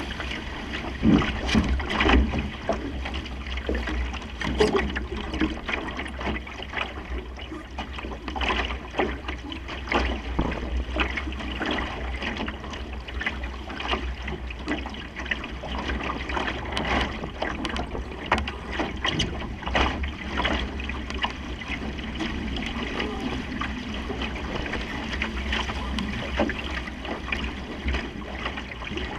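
Water splashing and rushing along the hull of a Supernova sailing dinghy under way, in short irregular slaps, with steady wind rumbling on the microphone.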